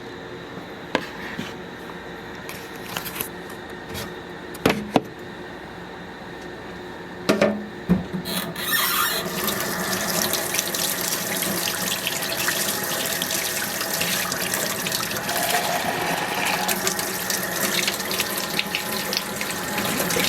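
A few knocks and clatters, then about eight seconds in a kitchen tap comes on and warm water runs steadily for mixing puppy milk replacer.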